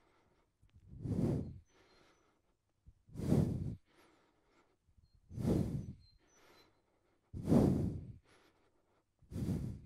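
A man breathing out hard five times, about two seconds apart, with the effort of each hip lift in a side plank.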